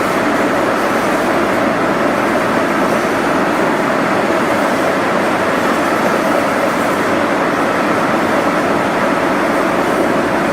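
Steady, unbroken running noise of factory processing machinery, with a faint steady whine above it.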